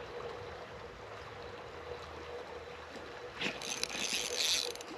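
Stream water running steadily. About three and a half seconds in, a brief rattling sound lasts a little over a second.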